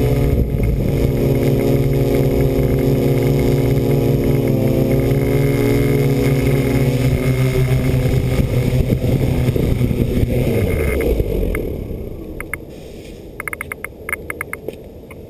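Electric motors and propellers of a radio-controlled aircraft, heard from its onboard camera: a steady pitched drone that dips briefly, then spools down and stops as the aircraft settles onto the ground. A few faint clicks follow near the end.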